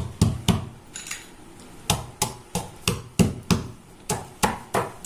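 Pounding in a granite stone mortar: the pestle strikes the stone three times, pauses for about a second, then keeps striking steadily about three times a second, breaking up a hard ingredient into small pieces.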